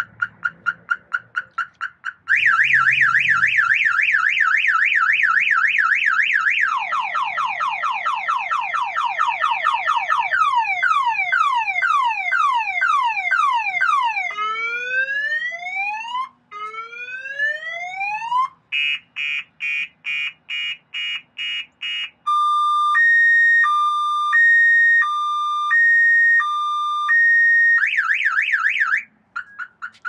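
Car alarm siren running through its cycle of tones. Quick repeated chirps are followed by a fast warble, then rapid falling sweeps, slower falling sweeps, slow rising whoops, a fast pulsing beep and a two-tone high-low alternation. It goes back to the warble briefly and cuts off near the end.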